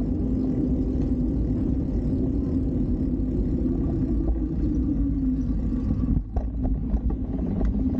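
Steady rumble of street traffic, with a few light clicks and a brief dip in level about six seconds in.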